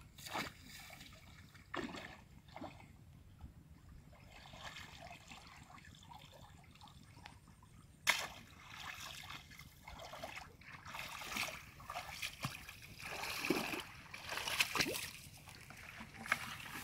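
Shallow muddy water splashing and sloshing as a person wades and gropes with her hands in it, with trickling between splashes. A sharp knock comes about eight seconds in, and the splashing grows busier after it.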